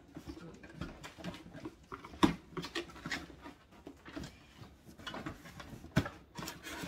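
A cardboard box being opened and rummaged through by hand: flaps rustling and scraping, with scattered knocks. The loudest knocks come about two seconds in and again near six seconds.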